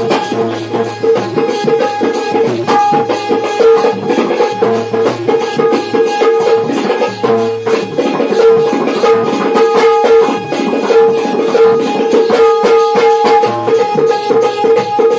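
Instrumental folk music from a Shakti-Tura dance troupe: fast hand-drum and rattle-like percussion under a loud, held melody line that breaks off and resumes every second or two.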